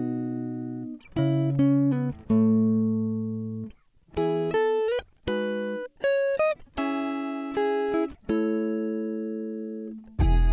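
Background music: a plucked guitar melody, single notes and short runs that ring and fade.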